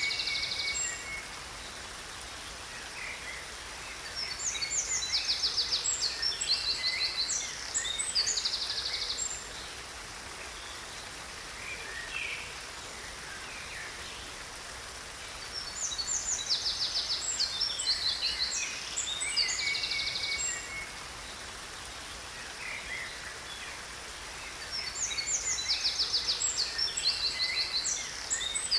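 Songbirds singing in bursts of rapid high chirps and trills a few seconds long, recurring about every ten seconds, over the steady rush of a waterfall.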